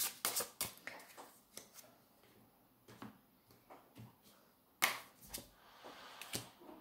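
Tarot cards being shuffled by hand: scattered crisp clicks and snaps of card on card, with a louder snap about five seconds in.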